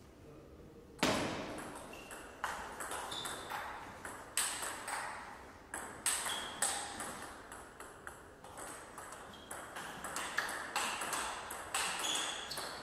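Table tennis rally: a celluloid-type ball clicking back and forth off the bats and the tabletop, about two hits a second, each hit ringing briefly. It starts about a second in, after a short quiet spell before the serve.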